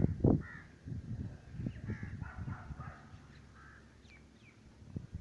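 Crows cawing several times, harsh calls that come in a run over the first three seconds or so. Low thumps on the phone's microphone are loudest right at the start.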